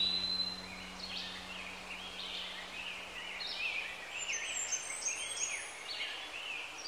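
Recorded birdsong in a background music track: a quick run of short chirps and whistles, with no instruments playing.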